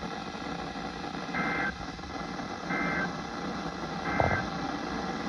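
Three short Emergency Alert System end-of-message data bursts, the two-tone digital warble that closes an alert, a little over a second apart over steady radio hiss. A brief thump comes with the last burst.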